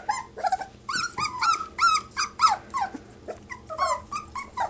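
Four-week-old Cavapoo puppies crying: a quick string of short, high-pitched cries that rise and fall, several a second.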